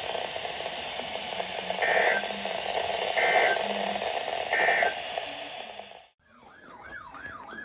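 Weather radio receiver hiss carrying three short warbling data bursts about a second and a half apart, typical of the EAS/SAME end-of-message code that closes an alert. The audio cuts out about six seconds in, then a fast up-and-down siren wail starts.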